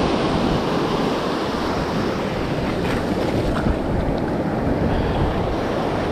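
Ocean surf breaking and washing up the sand in a shallow foamy swash, a steady rushing hiss, with some wind on the microphone.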